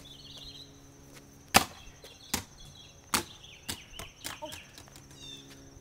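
A shaken plastic Pepsi bottle thrown down onto an asphalt driveway: one loud hard smack about a second and a half in, then several smaller bounces coming quicker and fading.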